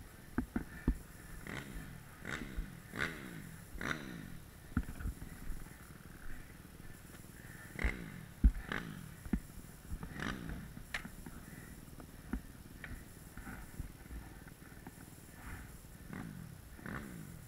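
Motocross bike engine, heard at moderate level, revved up and falling back in pitch again and again, about one to two seconds apart. Sharp clicks and knocks mark the start of several of the revs.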